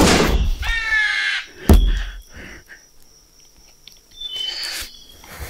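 A crow cawing once, then a single loud, sharp bang about two seconds in, and a fainter high bird call near the end.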